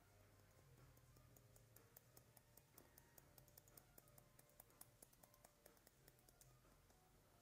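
Faint, rapid snipping of haircutting scissors, about five snips a second, cutting into the ends of a section of hair held up between the fingers. The snipping starts about a second in and stops shortly before the end.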